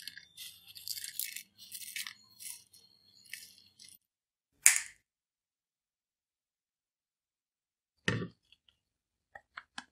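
Dry roasted whole spices (dried red chillies, coriander seeds, cumin, cinnamon sticks) rattling as they are tipped into the metal cup of an electric spice grinder. A single sharp clack comes a little before halfway, and a dull knock with a few light clicks follows near the end, as a plate is set down on a wooden table. The grinder motor is not heard.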